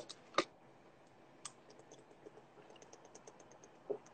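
Faint, irregular light clicks and taps like typing: a louder tap about half a second in, another about a second and a half in, then many small ticks.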